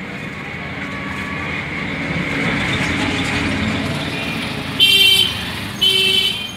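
Street traffic noise swelling as a vehicle goes by, then a vehicle horn honking twice near the end, each blast about half a second long.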